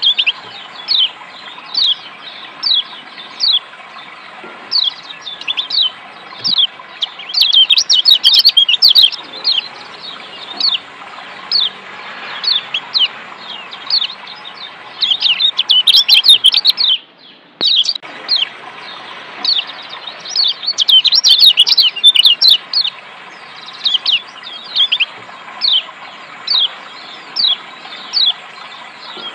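Kecial kuning, the Lombok yellow white-eye (Zosterops), giving short, sharp falling 'ciak' chirps about once a second, breaking several times into fast runs of chattering calls. Under the calls runs a steady rush of running water, and everything cuts out briefly just past the middle.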